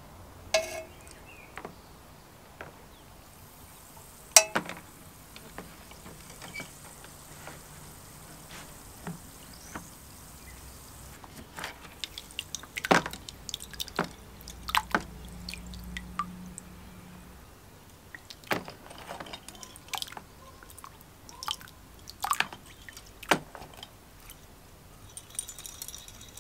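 Metal parts on wire hooks and crocodile clips being dipped in and lifted out of an acid pickle bath: scattered light clinks of the wire and clips, with drips and trickles of liquid. There is a sharp click about four seconds in, and the clinks and drips come thicker in the middle.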